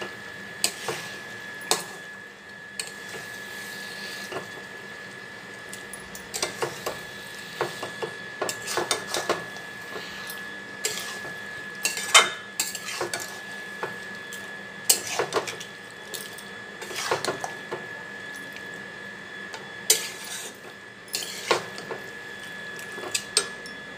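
Metal spatula scraping and knocking against a metal kadai as raw chicken pieces are stirred into fried masala. The knocks are irregular, several a second in clusters, over a low steady hiss.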